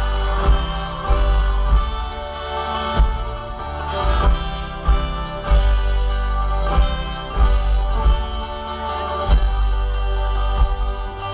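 Live folk-rock band playing the instrumental introduction of a song in waltz time: sustained chords over a regular low beat.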